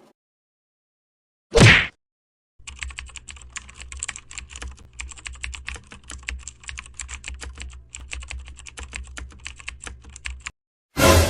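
Computer keyboard typing sound effect: rapid, irregular key clicks for about eight seconds. A short loud burst comes about a second and a half in, before the typing, and another loud burst comes near the end.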